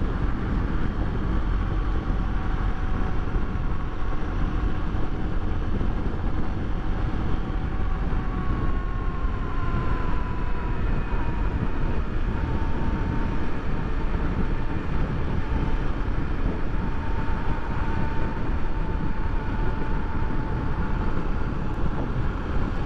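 Honda XRE300's single-cylinder engine running at highway speed, under heavy wind rush on the helmet-mounted microphone. The engine note drops a little about ten seconds in as the bike slows.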